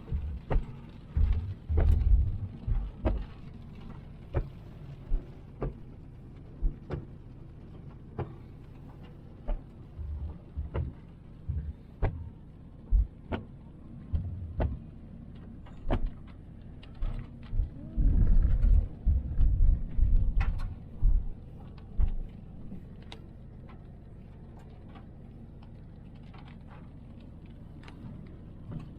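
Inside a car driving on a rough road: a low steady engine drone with irregular thumps and knocks from the ride over bumps and scattered sharp ticks. A run of heavier, closely spaced thumps comes about two-thirds of the way through.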